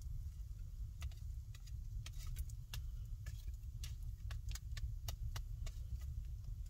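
Wood fire crackling in a stone fireplace, with sharp, irregular pops a few times a second over a steady low rumble.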